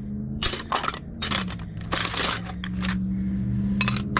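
Old metal hardware handles and knobs clinking and rattling against each other in a small box as they are rummaged through, in about four short clusters of clinks.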